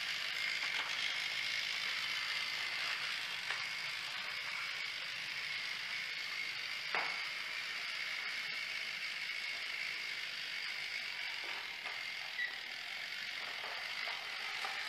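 Small electric motor and gears of a battery-powered plastic toy steam locomotive running along plastic track: a steady whirring with a hiss and a faint high whine. One sharp click about seven seconds in.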